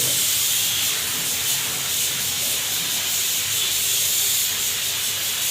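Spray gun hissing steadily as it sprays colour lacquer onto wood.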